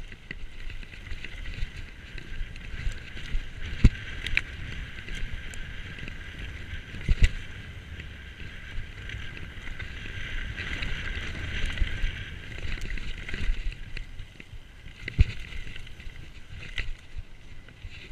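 YT mountain bike descending a dirt forest trail: tyres rolling and the bike rattling over the rough ground, with several sharp knocks as it hits bumps, the loudest about four, seven and fifteen seconds in.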